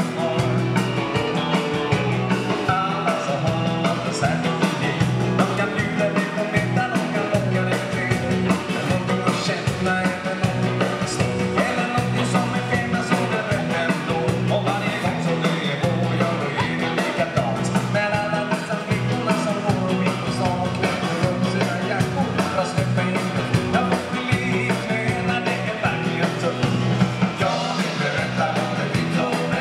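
Swedish dansband playing live: a steady dance beat with electric bass guitar under the melody, going on without a break.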